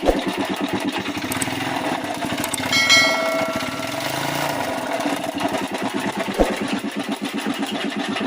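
Yamaha RS110's single-cylinder two-stroke engine running steadily, with a brief metallic ring about three seconds in.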